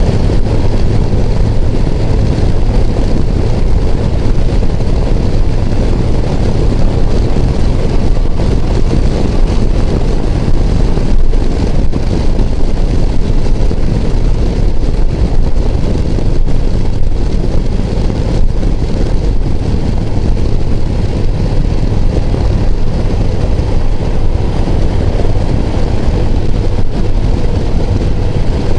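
Touring motorcycle riding at road speed: a loud, steady rush of wind buffeting the microphone over the drone of the engine.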